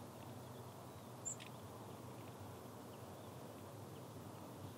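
Faint, steady outdoor ambience with a single short, high bird chirp about a second in.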